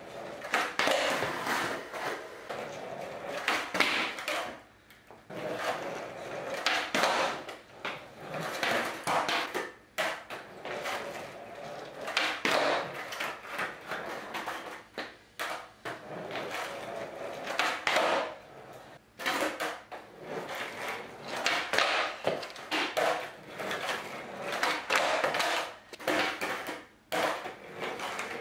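Skateboard rolling on a concrete garage floor, with repeated clacks of the wooden deck popping and landing during flip-trick attempts.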